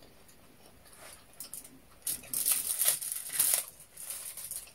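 Close-up mukbang eating sounds: a run of crisp crunching and crinkling bursts beginning about two seconds in and lasting about a second and a half, as food is chewed and picked from the foil-lined tray.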